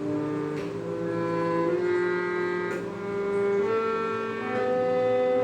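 Harmonium reeds played by a beginner who doesn't know the keys: several notes held together and overlapping, with new keys pressed every half second to a second, making shifting chords rather than a tune.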